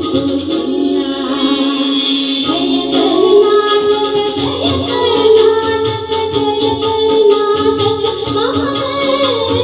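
A woman singing a song into a microphone over instrumental accompaniment with a steady beat.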